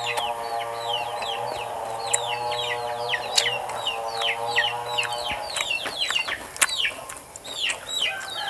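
Chicken chicks peeping rapidly and continuously, short high falling calls about three or four a second. Under them a steady hum of several tones runs until about five seconds in, and a few sharp clicks are heard.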